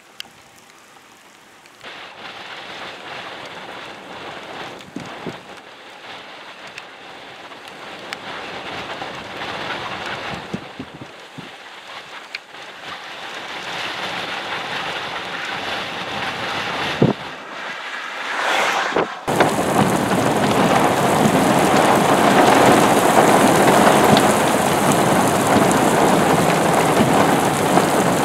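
Thunderstorm rain, light at first and slowly building, then about two-thirds of the way in a sudden change to a loud, heavy downpour.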